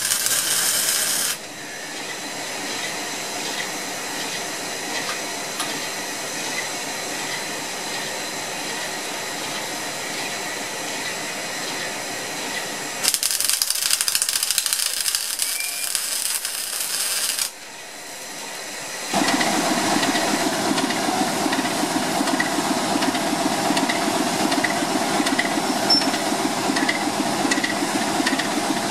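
Electric arc welding under a steam locomotive, crackling loudly at the very start and again for about four seconds in the middle, with a steady hiss between. About two-thirds of the way through the sound changes to a diesel locomotive's engine running steadily.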